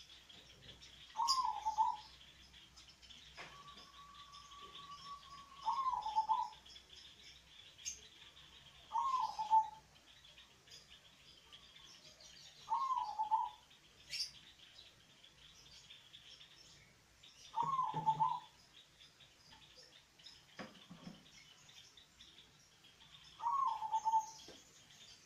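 Zebra dove (perkutut) cooing, about six short phrases spaced several seconds apart, the second preceded by a long steady note.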